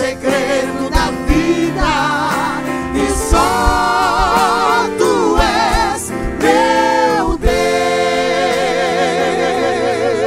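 Mixed vocal group singing a Portuguese gospel song in harmony to acoustic guitar, drawing out long notes with wide vibrato and sliding runs. The voices settle on one long held note in the last few seconds.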